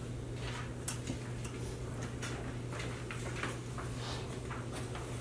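Meeting-room background: a steady low hum with scattered small clicks and rustles of handling.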